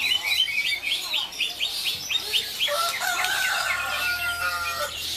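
Many caged songbirds, such as magpie-robins, white-rumped shamas and shrikes, sing at once at a songbird contest, with fast repeated chirps. About three seconds in, a rooster crows once, a drawn-out call of about two seconds.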